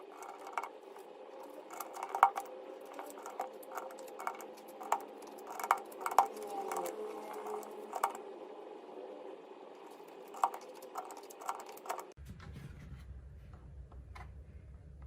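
Keys of a Fuhlen H95s mechanical keyboard with Fuhlen Yellow switches and PBT keycaps being pressed in irregular strokes, a few louder clacks among them. About twelve seconds in the sound changes to a low hum with only a few faint clicks.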